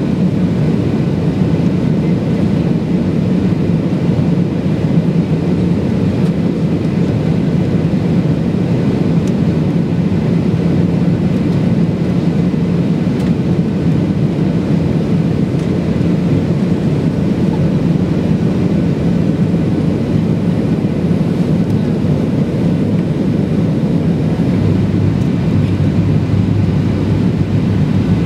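Cabin noise of a Boeing 737-800 on approach, heard from a window seat beside the wing: the steady low rumble of its CFM56-7B turbofan engines and the airflow. A deeper hum joins near the end.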